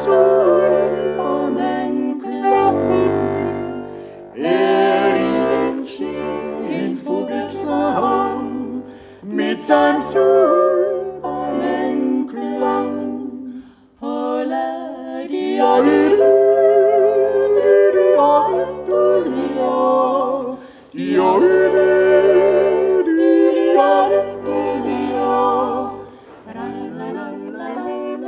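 Three voices, a man and two women, singing a Styrian folk song in harmony to a diatonic button accordion (Steirische Harmonika), which keeps steady bass notes under the melody. The song moves in phrases with brief breathing gaps.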